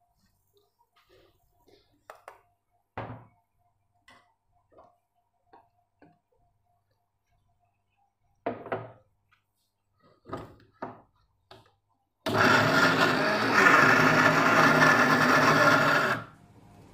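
Electric mixer-grinder jar blending frozen banana and mango chunks with sugar: a loud, steady whir that starts near the end, runs about four seconds and cuts off suddenly. Before it come a few light knocks and clinks of a spoon and dishes being handled.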